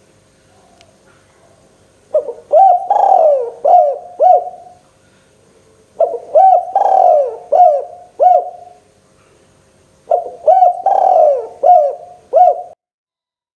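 Spotted dove (tekukur) cooing: three phrases about four seconds apart, each a run of several rising-and-falling coos.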